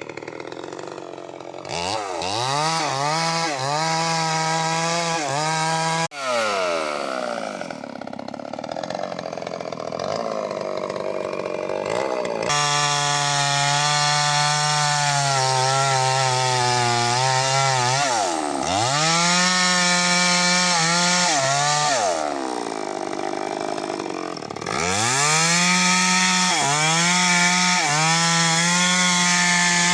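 Eagles 6620 two-stroke chainsaw running at full throttle and cutting wood, with the revs dropping back and rising sharply again about five times. The pitch sags and holds steady for a while as the chain works under load in the cut.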